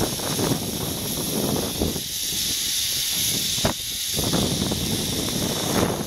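Wind buffeting the microphone during a zip-wire ride, over a steady high hiss from the trolley running along the steel cable. A single sharp click comes a little past halfway.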